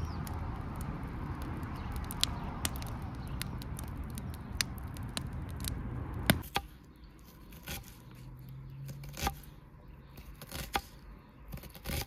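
Wood fire burning in the firebox of a clay stove: a steady rushing hiss with sharp crackles and pops. About six and a half seconds in, the fire sound drops away, leaving a few scattered sharp taps.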